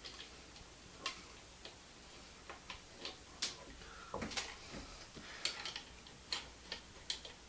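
Irregular light clicks and knocks as a wooden table is set and shifted on a small drill press's table and its Magswitch magnetic bases are switched on to lock it down.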